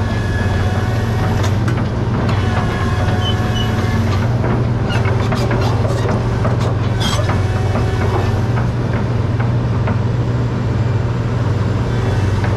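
2006 Komatsu PC800-7 hydraulic excavator's diesel engine running with a steady low drone, with a few metallic clanks and knocks from the machine around the middle.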